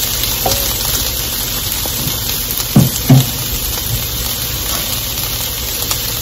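Chopped bell peppers and onions frying in oil in a hot wok, a steady sizzle. About three seconds in there are two short low thuds in quick succession.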